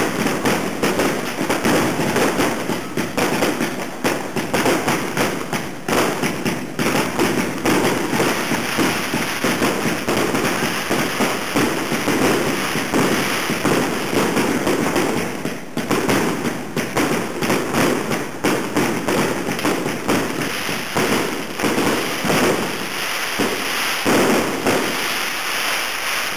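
Firecrackers going off in dense, rapid succession, with the cracks overlapping into an unbroken crackle that does not let up.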